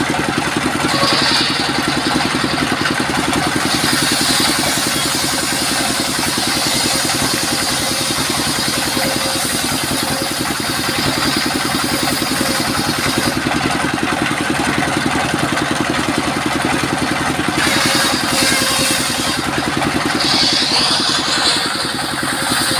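Engine-driven mobile circular sawmill running steadily, its engine giving an even rapid pulse, with a brighter hiss over several stretches as the blade cuts sengon (albizia) timber.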